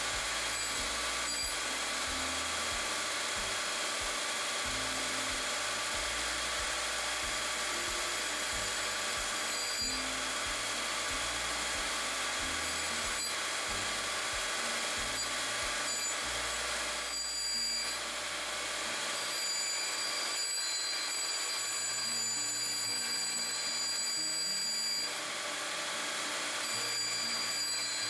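Grinding wheel running against the tip of a single-flute 82-degree countersink as it is reground, a steady grinding sound with several high ringing tones held over it.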